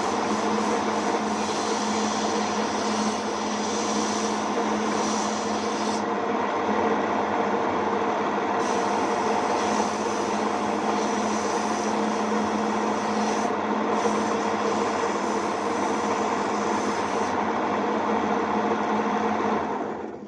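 Homemade wood lathe running steadily, its motor humming, while the spinning wooden lure blank is rasped and rubbed into shape.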